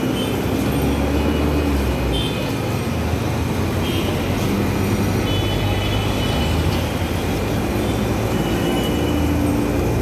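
Busy road traffic: a steady din of bus, truck and auto-rickshaw engines running close by, with a few short high tones now and then.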